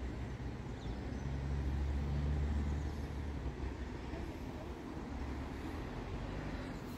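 Low rumble of a motor vehicle's engine going by, swelling about two seconds in and then easing off.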